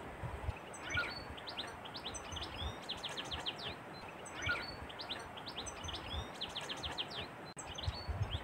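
Birds chirping, with two rapid trills in the middle, over a steady background hiss. Underneath, soft low squelches of hands kneading minced pork in a glass bowl.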